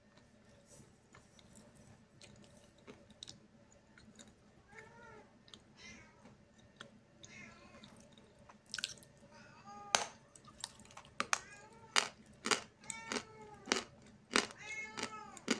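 Lump of Snezhok chalk being bitten and chewed close to the microphone: sharp dry crunches, growing louder from about nine seconds in, mixed with short squeaky tones between the bites.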